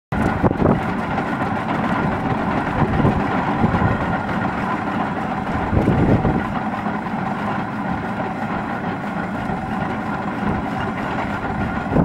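Steam ploughing engine hauling a cable balance plough across the field by its wire rope: a steady mechanical running sound with irregular low swells, the loudest about six seconds in.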